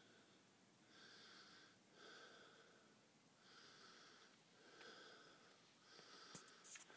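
Faint, regular breathing close to the microphone, in and out about once a second with a wheezy hiss. A few sharp clicks come near the end.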